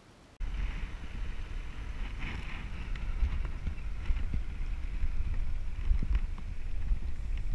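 Heavy wind rumble on a moving camera's microphone with a steady hiss and scattered small knocks, starting abruptly about half a second in as the camera travels down a dirt trail.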